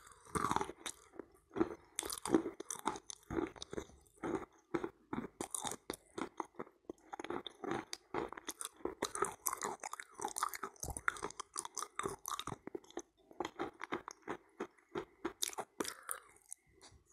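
Close-miked chewing and crunching of soft pressed chalk-and-clay "halva" coated in wet kaolin clay paste: irregular crunches and wet mouth sounds, several a second.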